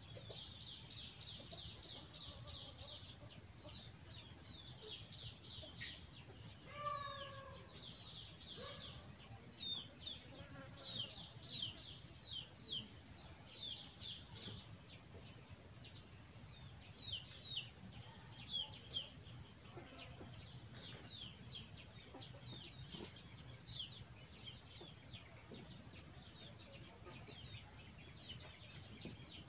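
Outdoor ambience: a steady high insect drone with many quick, high, falling chirps running through it, and a short call about seven seconds in.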